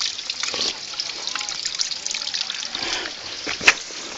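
A small stream trickling and burbling over rocks, with little bubbling plinks throughout. A single sharp click comes about three and a half seconds in.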